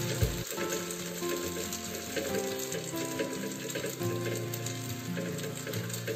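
Semolina-and-flour batter sizzling on a hot oiled pan as it is spread thin with a ladle, over background music.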